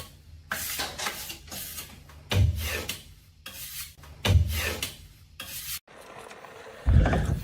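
Rough scraping or rasping strokes repeated at an uneven pace, about one a second, several of them with a low thump; the heaviest thump comes near the end.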